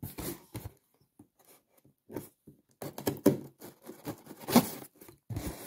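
Kitchen knife slitting the packing tape along a cardboard box's seam: irregular scratchy cutting and scraping strokes, in two spells with a pause of about two seconds between them.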